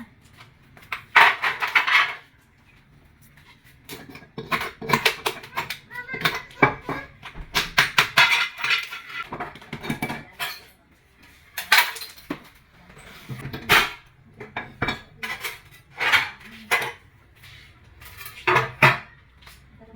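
Hard tools knocking, clinking and scraping against ceramic tile in irregular strokes, with short pauses between them.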